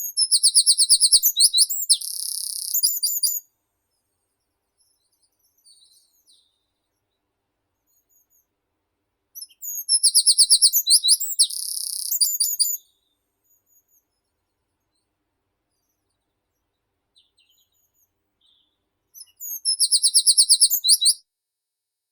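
A meadow songbird sings the same song three times, about ten seconds apart. Each song is a quick run of repeated high notes that ends in a buzzy trill.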